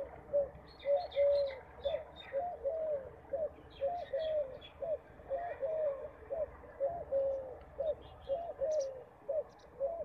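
Pigeon cooing: a long, regular run of short, soft coos, about two a second, each note rising and falling in pitch. Faint high chirps of small birds come and go over it.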